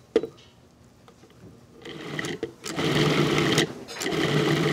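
Food processor pulsing in three short bursts of about a second each, its blade chopping chilled, partly firmed beef cubes into ground meat. A sharp knock comes just after the start, as the meat goes into the work bowl.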